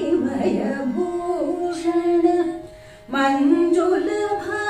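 Two women singing a Carnatic song in raga Kanada together, holding long notes with sliding pitch ornaments. The singing breaks off briefly about three seconds in, then resumes.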